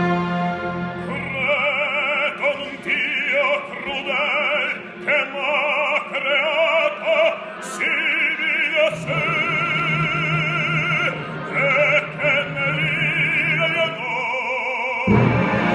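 Male operatic baritone singing an aria in full voice with wide vibrato, in phrases, with a live orchestra. The orchestra holds a low note under the voice through the second half and comes in loudly near the end.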